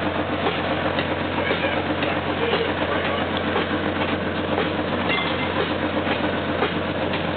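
Boat engine running steadily: a constant low drone with a dense, busy noise over it.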